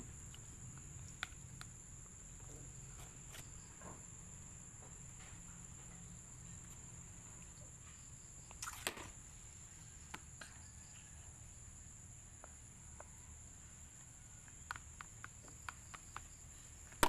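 Quiet background with a steady high-pitched insect drone, with a few small clicks and taps scattered through it and one brief rustling noise about nine seconds in.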